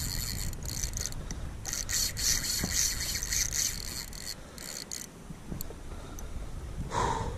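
Spinning reel's drag buzzing in quick stuttering runs as a large amberjack pulls line off against it: the fish is still taking line. The runs come at the start and again from about two to four seconds in, over low water and hull noise.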